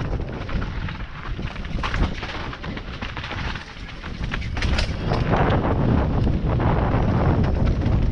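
Rushing wind on the microphone with a constant run of rattles and sharp knocks, as from a camera carried fast over rough ground on a trail ride. There is no engine note, only noise and impacts.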